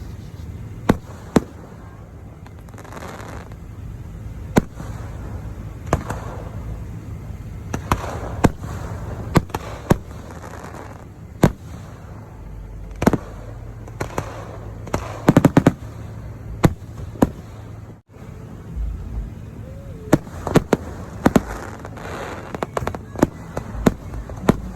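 Aerial fireworks going off in an irregular series of sharp bangs, with hissing and crackling between them and a fast burst of reports about fifteen seconds in.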